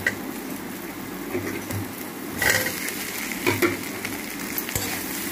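Garlic, dried chilli and boiled soya chunks frying in oil in a metal kadai with a steady hiss, while a steel spatula scrapes and clinks against the pan in several short strokes.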